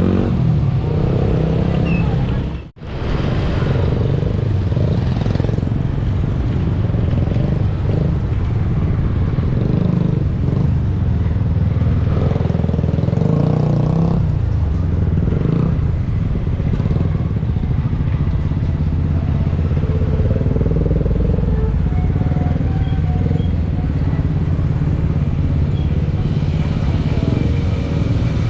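Road traffic with motorcycle and car engines running in a steady mix, with a brief cut-out about three seconds in.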